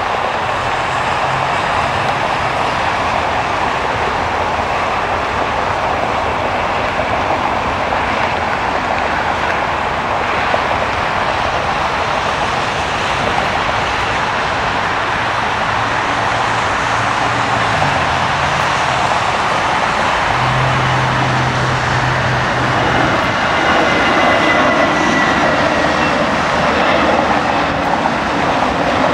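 Airbus A319 jet engines at takeoff power: a steady, loud rushing noise as the airliner runs down the runway and climbs away, growing slightly louder near the end as it climbs out.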